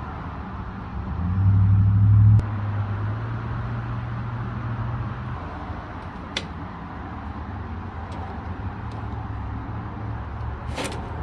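Microwave oven running after its faulty upper switch was repaired, so it now starts: a steady low hum, louder for about a second and a half, dropping with a click a couple of seconds in. Then a quieter hum with a few light clicks and a double click near the end.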